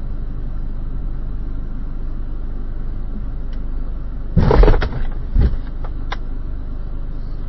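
Steady low rumble of a stopped car's engine and cabin, then about four and a half seconds in a loud thud as a reversing Toyota SUV bumps into the car's front, with a second knock about a second later.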